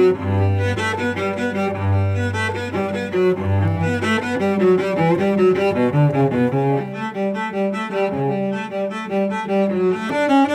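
Cello played with a bow: a melody of changing notes, with long low notes sounding beneath it in the first four seconds or so.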